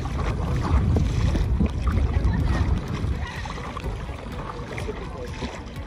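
Gusty wind rumbling on the microphone over water moving around a stand-up paddle board. It is strongest in the first half and eases later.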